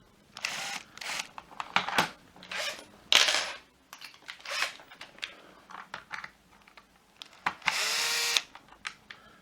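Small electric screwdriver running in short bursts of about half a second, backing screws out of a plastic vacuum power nozzle housing, with a longer run near the end.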